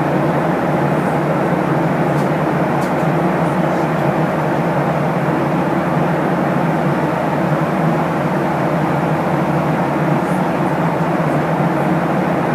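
Steady cabin rumble of a Boeing 737-800 airliner heard from inside the cabin, a constant mix of engine and airflow noise with no rise or fall.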